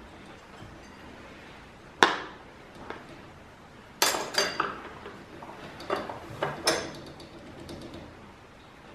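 Metal clinks and clicks from a bolt-on clamp and an Allen key as the clamp is fitted and its bolt done up a little on one side: one sharp click about two seconds in, then a run of clinks and rattles from about four to seven seconds.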